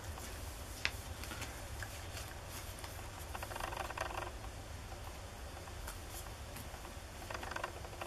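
Faint rustling and sliding of Pokémon trading cards being handled and slipped into plastic card sleeves, with a small click about a second in.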